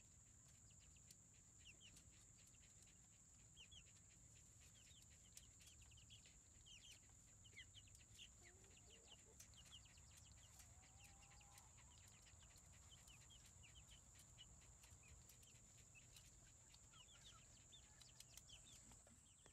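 Very faint, close to silence: young chicks peeping in many short, quick chirps, with a steady thin high-pitched tone underneath.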